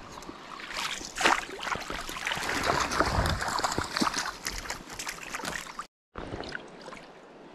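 Small brown trout splashing and thrashing in the water as it is landed: a busy run of splashes for about five seconds, loudest about a second in. It cuts off suddenly and gives way to the steady rush of the stream.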